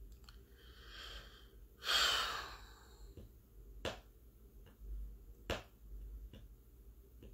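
A person breathing close to a phone microphone, two audible breaths about a second apart, followed by a few sharp clicks.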